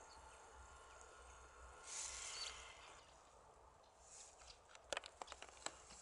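Quiet winter outdoor ambience with a faint steady hiss. About two seconds in there is a brief soft rush of noise, and near the end a quick cluster of sharp clicks.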